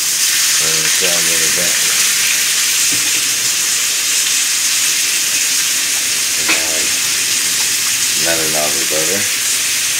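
Ribeye steak searing in a hot frying pan: a steady, loud sizzle.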